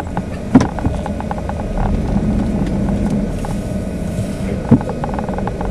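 A vehicle running along, with a steady rumble and hiss. Two sharp knocks, one about half a second in and one near the end.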